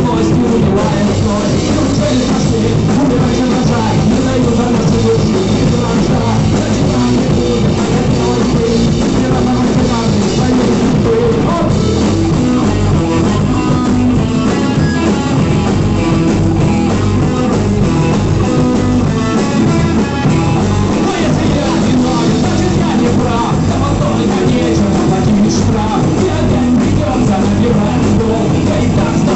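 Rock band playing live, with drum kit and guitars.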